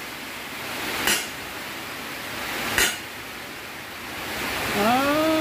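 Two sharp metallic hammer blows about a second and a half apart, tapping a toothed timing-belt pulley down onto a crankshaft snout, over a hiss that swells between the blows.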